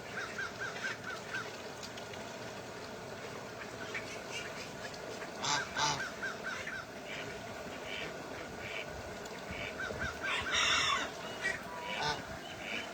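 Ducks and geese calling: several quick runs of short repeated calls, with a few louder, harsher calls about halfway through and again later.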